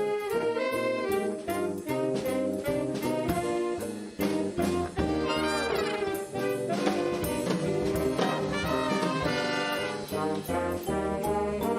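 A student band playing, brass instruments to the fore, with a steady beat.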